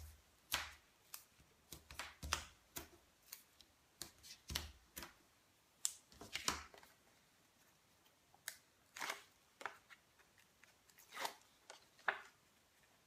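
Pieces of cardstock being handled: scattered short paper rustles, taps and clicks as they are picked up, turned over and laid down.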